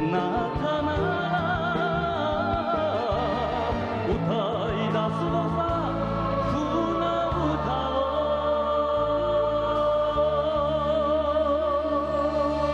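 Music: a band playing a slow enka-style ballad, its melody in long notes with vibrato over a bass that steps from note to note, with one note held through the last few seconds.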